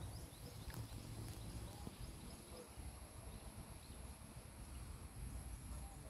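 Faint outdoor ambience: a steady low rumble with a few faint bird chirps in the first second.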